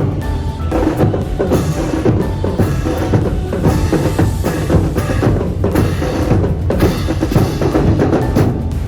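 Student brass band playing marching music, with bass and snare drums prominent.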